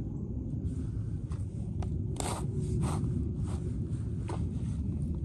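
A shovel scraping and cutting into grassy soil: a handful of short crunches and scrapes, the loudest just past two seconds in, over a steady low rumble.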